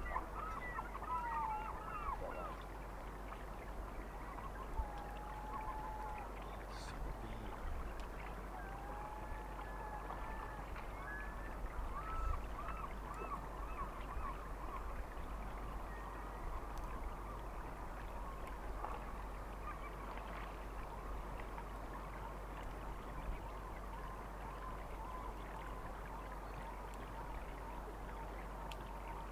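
Distant birds calling: many short pitched calls in the first half, thinning out later, over a steady outdoor background hiss.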